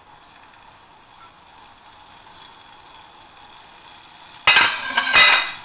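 Paneer slices starting to fry in a little oil in a non-stick pan over a gas flame, a faint steady hiss. About four and a half seconds in, a sudden much louder burst of sizzling noise comes in, with a sharp knock just after.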